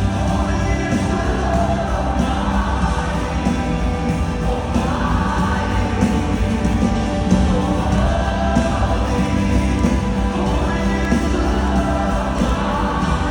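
Live worship music: a band playing with many voices singing together, loud and continuous.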